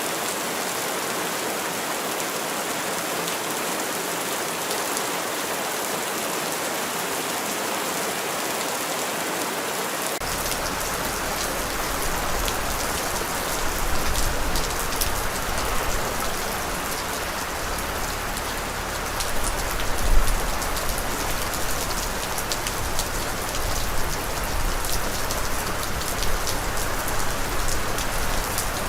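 Steady rain falling on a surface. About ten seconds in, a low rumble suddenly joins underneath, and single drop hits stand out more clearly, growing slightly louder with scattered heavier splashes.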